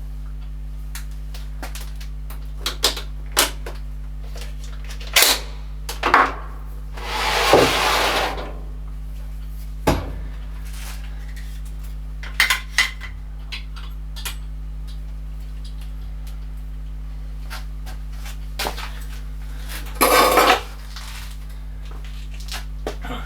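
Metal tools and workpieces clinking and knocking in a workshop, a dozen or so scattered sharp clinks, over a steady low electrical hum. Two longer scraping, rustling noises stand out, one lasting over a second about seven seconds in and a shorter one near the end.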